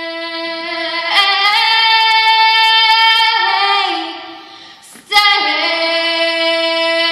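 A girl singing solo into a microphone, holding long notes. Her voice fades out about four seconds in, and after a short break she sings again.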